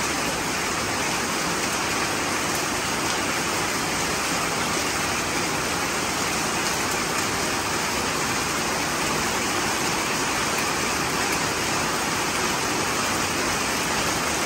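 Heavy rain pouring down, a steady, even hiss that does not let up.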